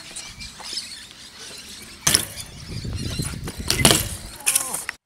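BMX bike rolling on concrete skatepark ramps, with loud knocks about two seconds in and again near four seconds, then cuts off abruptly.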